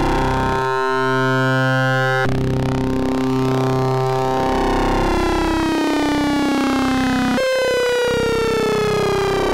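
Eurorack modular synthesizer patch built around a Rossum Trident oscillator, holding one low note while the width of its sub is varied. The tone changes abruptly about a second in and again after two seconds, then its overtones glide slowly downward through the second half.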